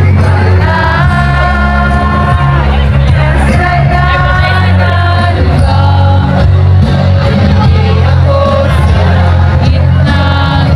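A live band playing on a concert stage, with a singer's long held notes over heavy bass, heard loud from within the crowd.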